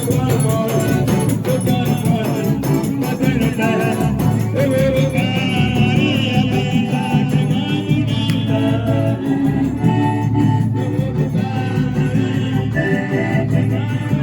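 Forró music playing, with a steady, fast percussion beat under pitched melody notes.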